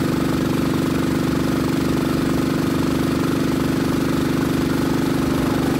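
Royal Enfield motorcycle engine running at a steady cruising speed, its pitch holding even.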